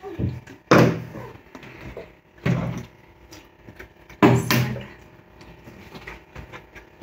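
A small plastic water bottle being flipped and landing on a wooden table, three loud thuds about two seconds apart with lighter knocks between.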